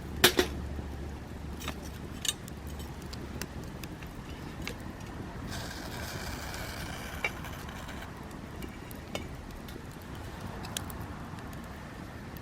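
Hinoki (Japanese cypress) firewood burning in a campfire: sharp crackling pops at irregular moments over a steady low rumble, with a soft hiss for a couple of seconds in the middle.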